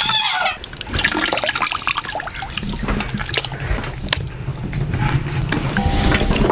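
Water sloshing and splashing in a metal pot as hands rub and squeeze pieces of raw meat, with irregular wet clicks and drips. A low steady hum sits under it during the second half.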